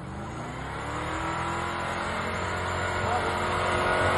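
Toyota Land Cruiser 100-series SUV engine working under load in deep snow. Its revs rise over about the first second, then it pulls steadily, growing louder as it approaches.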